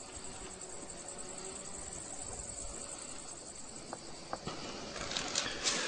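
Insects chirping steadily outdoors in a high, continuous drone, with a few short knocks near the end.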